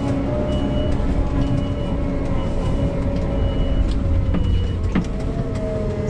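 Kramer KT407 telehandler's diesel engine running, heard from inside the cab, with its reversing alarm beeping about once a second. The beeping stops a little over four seconds in, and the engine's pitch then rises slightly.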